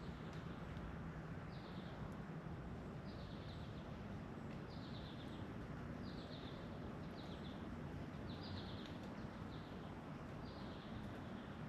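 A small bird repeating a short, high, buzzy chirp about once a second, over a steady low background rumble.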